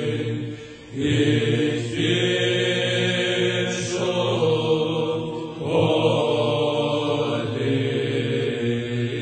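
Liturgical chant of a psalm: voices singing a slow, drawn-out melody over a held steady drone, with a brief break in the sound just before a second in.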